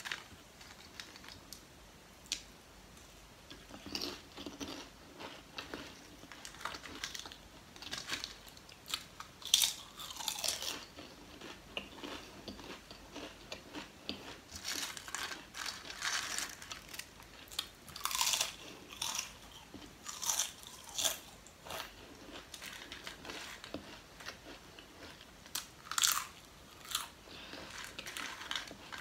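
Close-up crunching and chewing of Lay's potato chips: irregular crisp crunches with short pauses between bites. The loudest crunch comes about nine and a half seconds in, and another sharp one comes near the end.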